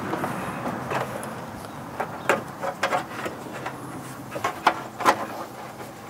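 Gloved hands pushing a hood release cable's rubber grommet into its hole in the car body's sheet metal inside the fender well: a run of irregular clicks, knocks and scuffs, the sharpest a little after two seconds and twice near the end.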